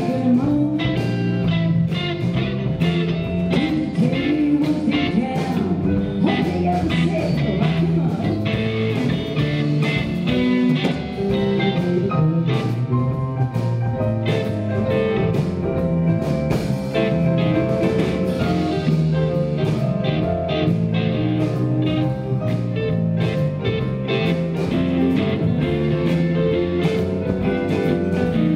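Live blues-rock band playing: electric guitars, bass, keyboards and a drum kit keeping a steady beat, mostly instrumental with the guitar to the fore.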